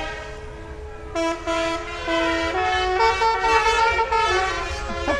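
Musical horn on a passing light-up van playing a tune: from about a second in, a run of loud held notes stepping up and down, over the low rumble of passing vehicles.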